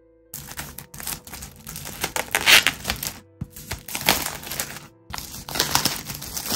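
Plastic shrink-wrap film being pulled and peeled off a laptop box, crinkling and crackling in irregular bursts, loudest about two and a half seconds in.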